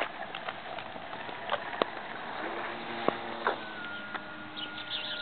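Electric motor of an RC airplane in flight, a thin steady whine that shifts pitch a little with throttle, with scattered sharp clicks and knocks nearby.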